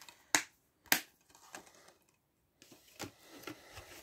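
Plastic Blu-ray disc cases being handled, with two sharp clicks near the start and fainter clicks and rustles after.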